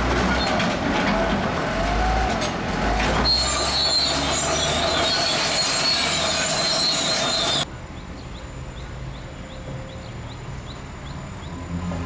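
Zoomlion crawler bulldozer working, its engine rumbling and its steel tracks squealing and clanking. The sound cuts off suddenly about two-thirds of the way through, leaving a quieter background with a faint ticking about twice a second.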